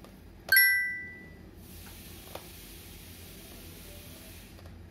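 The kadhai knocks once against the aluminium cake tin while the batter is poured in, a sharp metallic clink that rings and fades over about a second.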